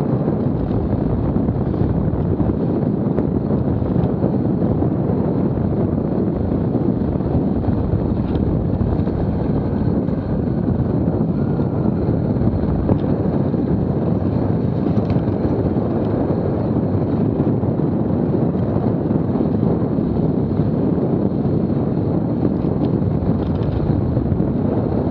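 Steady wind rush over a helmet-camera microphone on a dirt bike riding at about 20 mph, with the bike's engine running underneath.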